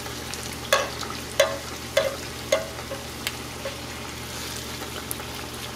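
Corn masa tortilla frying in hot oil, a steady sizzle as it puffs into a taco shell. A metal slotted spoon and mesh strainer clink sharply about five times during the first few seconds while shaping it.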